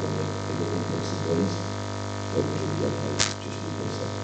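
Steady electrical mains hum in the recording, with a single sharp click about three seconds in.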